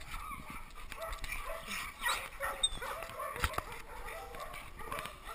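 A group of dogs barking and yipping now and then, with whimpers among them. A single sharp knock comes about three and a half seconds in.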